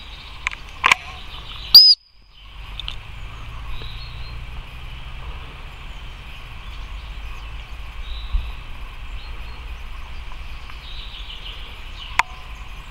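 A single short, loud whistle blast about two seconds in, the recall signal that brings two Polish hounds running back. After it comes a steady outdoor background of birdsong and insects, with a low wind rumble on the microphone.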